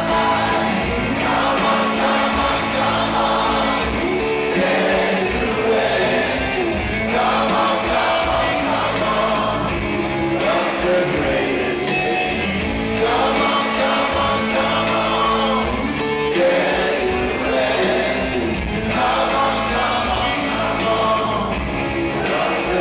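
Live rock band performing, with a singer on acoustic guitar and drums behind, heard from within the audience.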